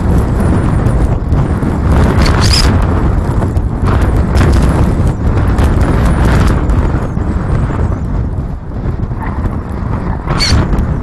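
Strong wind buffeting the microphone: a loud, low rumbling noise that rises and falls in gusts, easing briefly about two-thirds of the way in.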